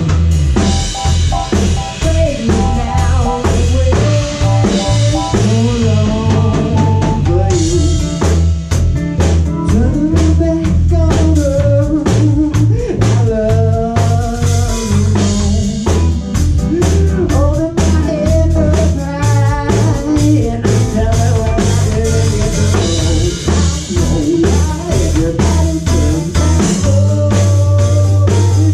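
A rock band playing live together: drum kit, bass guitar, electric guitar and keyboard, with a voice singing over them.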